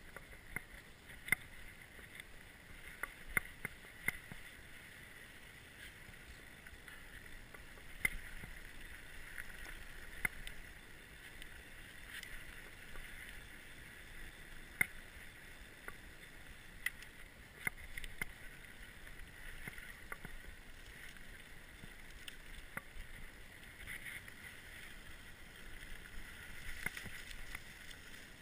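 Orbea Occam mountain bike rolling fast along a dry dirt singletrack: a steady rushing noise with frequent sharp knocks and rattles as the bike goes over bumps.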